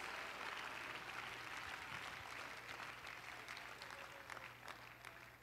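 Faint applause from a small congregation, many scattered claps that taper off and die away near the end.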